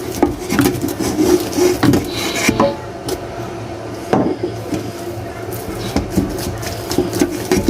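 A utensil scraping and knocking against a dish as cooked pando yam is handled, a few sharp knocks scattered among rubbing scrapes, over a steady low hum.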